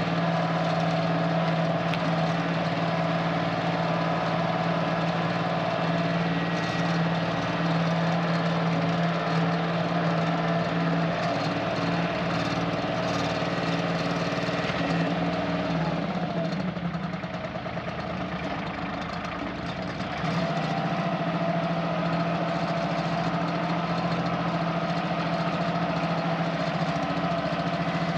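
Kioti CK2610 compact tractor's three-cylinder diesel engine running steadily under work. The engine sound drops for a few seconds past the middle, then comes back up.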